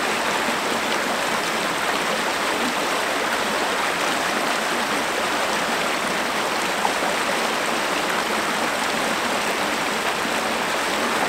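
Fast-flowing shallow stream rushing over rock shelves: a steady, even rush of water.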